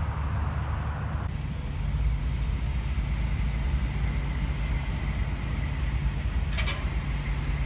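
Steady low rumble of city traffic, with a constant engine-like hum underneath and one short click about seven seconds in.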